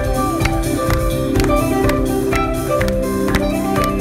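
Live rock band playing an instrumental passage: electric and acoustic-electric guitars holding notes over a drum kit, with steady drum hits.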